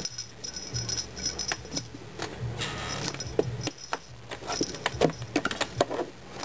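A kitten batting at a homemade cardboard play box toy, making scattered taps, knocks and rattles. A jingle ball hanging inside the box jingles briefly a little before the middle.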